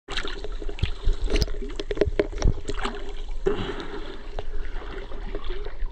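Water splashing and lapping right at the microphone as the camera is carried through a pool at the surface by someone swimming or wading, with many irregular sharp splashes.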